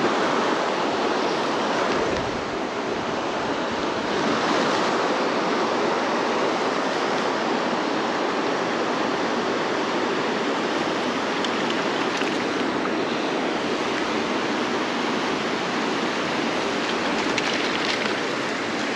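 Steady rush of river water pouring over small rock-ledge cascades.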